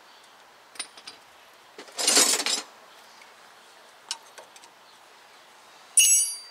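Steel pliers working a circlip on a truck's upper ball joint: small metal clicks, a short scrape that is the loudest sound, then near the end a sharp metallic clink that rings briefly.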